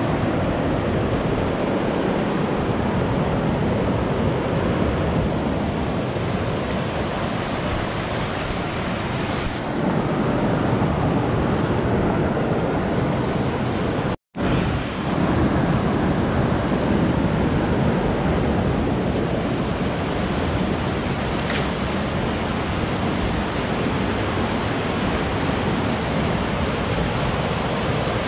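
A fast-flowing rocky river rushing steadily over its rapids. The sound cuts out to silence for a moment about halfway through.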